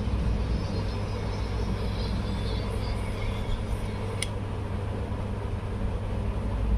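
Low steady rumble with no music, and one sharp click about four seconds in.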